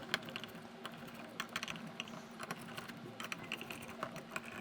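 Screwdriver working the small screws out of a motherboard's stock heat sinks: faint, irregular clicks and ticks of the bit in the screw heads.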